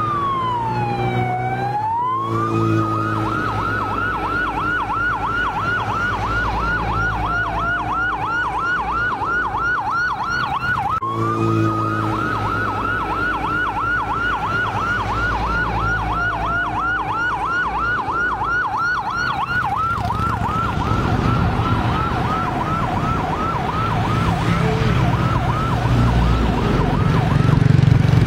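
Electronic vehicle sirens going in a fast yelp of about four cycles a second, with a slower wail dipping and rising every several seconds, over the engines of a passing line of minibuses. The siren breaks off briefly about eleven seconds in, and the traffic rumble grows louder near the end.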